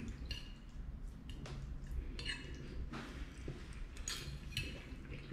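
A metal fork scraping and clicking against a plate in a handful of short strokes while someone eats, with quiet mouth sounds of eating.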